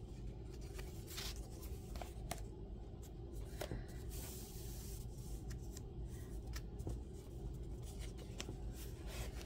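Faint handling of the paper pages of a handmade book: light rustling and a scattering of soft ticks over a steady low room hum.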